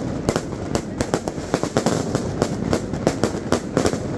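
Fireworks going off in a dense barrage: many sharp bangs and cracks, irregular and several a second, overlapping one another.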